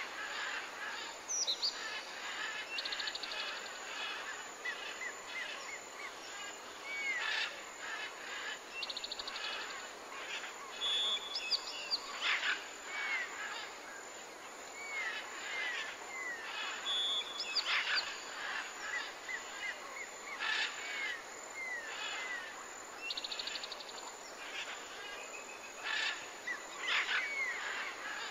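Several birds chirping and calling: short up-and-down chirps and quick trills, repeating at irregular intervals over a faint steady hiss.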